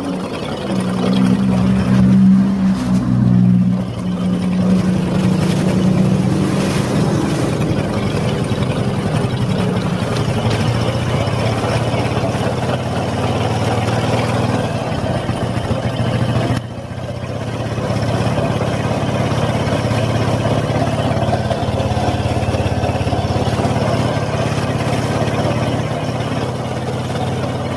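Honda Supra X 125 single-cylinder four-stroke engine running, louder for the first few seconds and then steady, with a rough metallic grinding, a 'krok krok krok' from inside the clutch cover. The mechanic suspects a part in the clutch, the clutch hub or the clutch bell, is spinning out of true.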